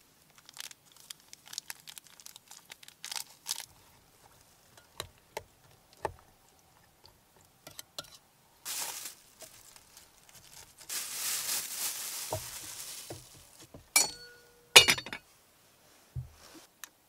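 Handling sounds of food preparation: scattered light taps and clicks, a few seconds of plastic crinkling, then two sharp clinks that ring briefly.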